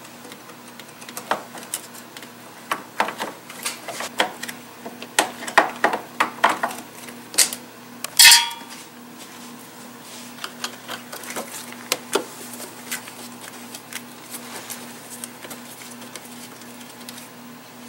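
Screwdriver working the air intake screws out of the plastic engine cover and intake duct: a run of small clicks, scrapes and taps, with one louder ringing metallic clink about eight seconds in, over a faint steady hum. The handling grows quieter for the last few seconds.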